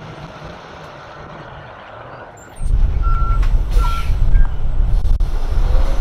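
A truck's reversing alarm beeps twice, short and high. Under it, a loud low rumble starts suddenly about two and a half seconds in.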